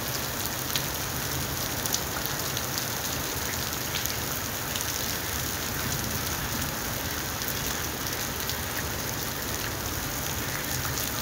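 Steady rain falling on a wet paved platform and railway tracks, an even hiss with scattered sharp ticks of nearby drops.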